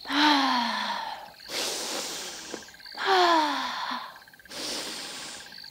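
A woman taking slow, deep calming breaths. She lets out two long out-breaths as audible sighs falling in pitch, and each is followed by a long in-breath.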